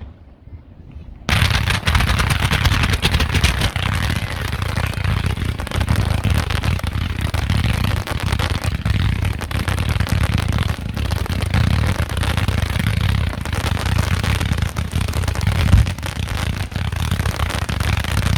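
Aerial fireworks going off in a dense, continuous barrage of rapid bangs and crackling. It starts suddenly about a second in and keeps up without a break.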